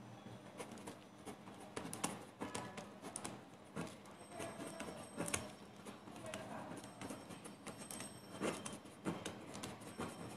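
Pen writing on paper on a table: faint, irregular scratching strokes and small taps of the pen tip.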